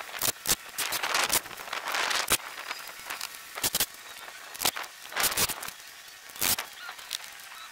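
Scattered sharp clicks and knocks at uneven intervals, mixed with a few short shuffling scrapes and footsteps on loose dirt, from a person handling tools and lumber.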